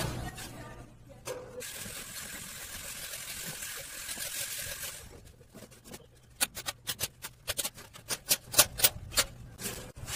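A bicycle with a stainless steel sidecar frame being moved by hand: a quick run of sharp, irregular metallic clicks and rattles lasting about three seconds, after a few seconds of steady hiss.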